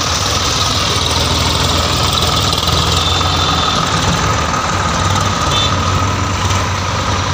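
Sonalika DI 740 tractor's diesel engine running steadily as it pulls away a trailer loaded with mud.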